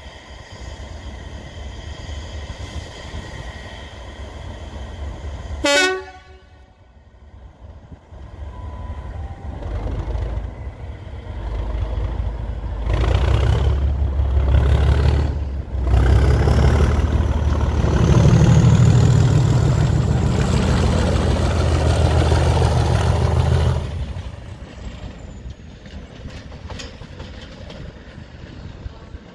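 Class 37 diesel locomotive with its English Electric V12 engine departing: a short horn toot about six seconds in, then the engine opening up from about ten seconds, running loud and heavy for about ten seconds as it pulls away under power, and dropping off sharply near the end.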